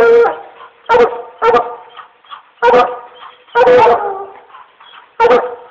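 Hunting dogs barking at the tree where they have game treed: about six loud barks, roughly one a second, with one longer drawn-out bark near the middle.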